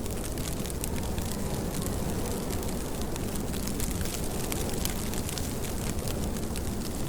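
Steady rainfall, a constant wash of noise with many small drop ticks scattered through it.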